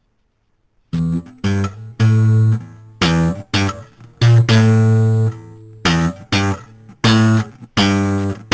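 Guitar music: a run of separate low plucked notes with sharp attacks, starting about a second in.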